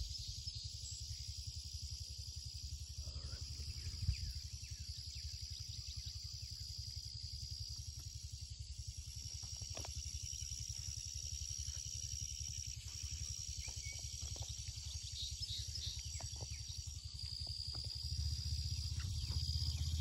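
Insects buzzing in a steady high drone that breaks off and resumes every few seconds, over a low rumble that grows louder near the end. A single sharp knock about four seconds in.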